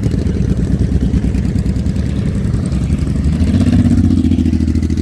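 Motorcycle engine running with a rapid, even firing beat, swelling slightly about three and a half seconds in.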